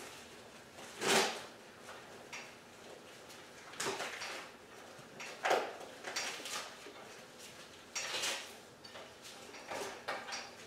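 A deer's hide being pulled and worked off the hanging carcass by hand: about five short, scraping strokes, irregularly spaced a second or more apart.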